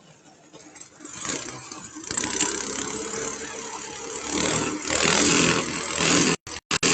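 Small vehicle engine running and revving, getting louder from about a second in. Near the end the sound cuts out in several short gaps.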